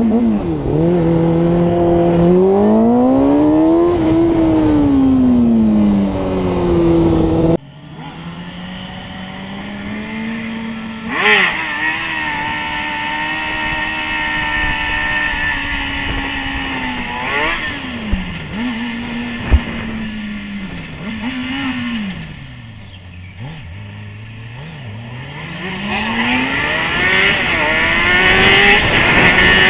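Motorcycle engines heard from the bike itself. First a Honda sport bike revs up and drops back several times through the gears. After an abrupt cut, a second motorcycle holds a steady note, slows and falls toward idle, then accelerates hard again near the end.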